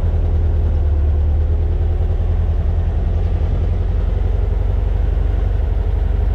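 1967 dune buggy engine running steadily, with a constant low drone.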